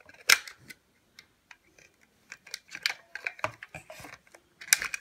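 Plastic clicks and small rattles from a Browning Strike Force trail camera's battery tray being worked out of its housing by hand. There is a sharp click about a third of a second in, scattered lighter clicks through the middle, and another sharp click near the end.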